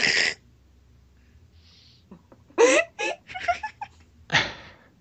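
People laughing: a short breathy burst at the start, a voiced laugh a little past halfway, and another breathy burst near the end.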